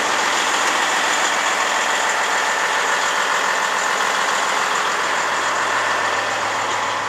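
Volvo VNL 880 semi truck's diesel engine idling steadily, an even running sound with a thin steady whine on top.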